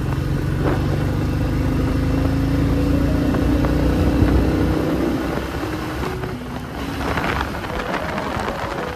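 Motorcycle engine pulling under throttle, its pitch rising slowly, then easing off about five seconds in.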